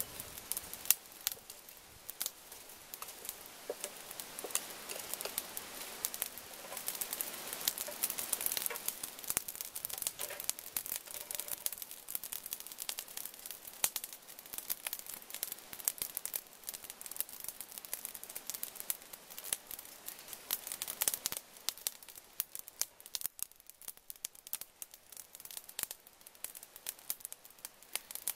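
Charcoal burning in a small stove, crackling with scattered sharp pops over a soft hiss that is stronger for a few seconds near the start.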